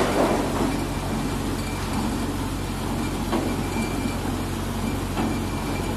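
Tractor engine running steadily, driving a tractor-operated transit mixer's drum as it discharges concrete down the chute. A sharp knock right at the start and a couple of faint clicks later.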